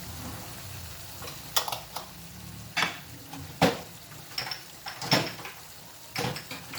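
Coriander powder being stirred into frying tomato masala in a pan: a utensil scrapes and knocks against the pan in about six separate strokes, over a low steady sizzle.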